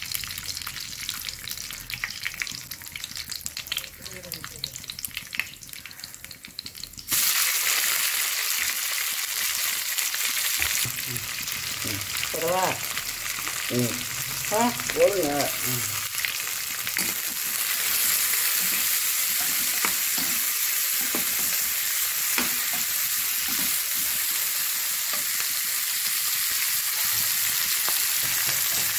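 Curry leaves and seeds crackling and popping in hot oil in a wok. About seven seconds in, sliced onions go into the oil and set off a sudden, loud, steady sizzle as they are stirred with a metal spatula.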